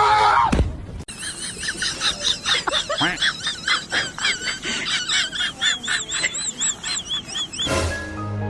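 Birds chirping in a fast, dense run of short, high notes, several a second, after an abrupt start about a second in. A sudden thump comes near the end.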